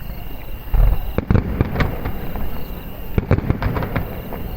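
Aerial fireworks bursting: a deep boom just under a second in, followed by two spells of rapid crackling pops.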